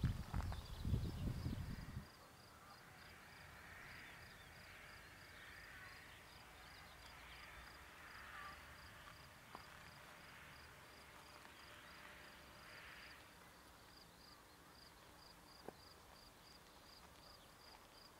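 Footsteps and handling knocks for the first two seconds, then quiet open-country ambience: a high chirp repeating steadily a little over twice a second, with faint distant chirping calls.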